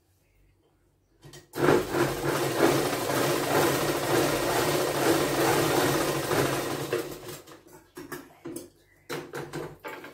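A sewing machine stitching fabric: one steady run of about five seconds that slows and stops about seven seconds in, then a few short bursts of stitching near the end.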